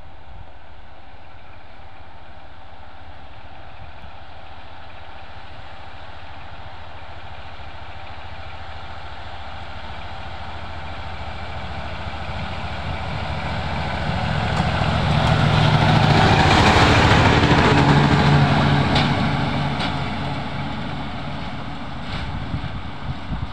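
DGKU diesel railcar engine running as the railcar approaches along the track. It grows steadily louder, is loudest as it passes about two-thirds of the way through, then fades as it moves away, with a few sharp clicks near the end.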